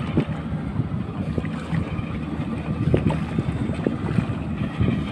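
Wind buffeting the microphone: an uneven low rumble, with a few faint knocks.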